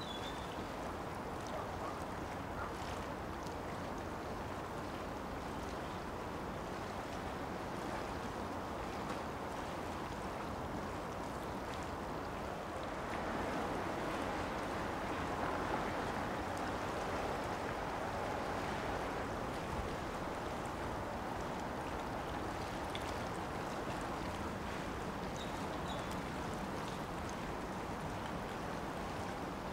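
Steady outdoor rushing of wind and water, swelling for several seconds about halfway through, with a few faint high chirps.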